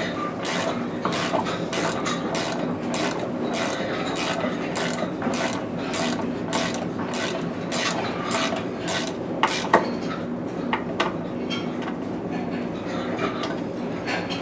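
Ratchet wrench clicking in quick, even strokes, about three a second, working on a bolt of a stall fitting; the clicking stops about ten seconds in. A steady hum runs underneath.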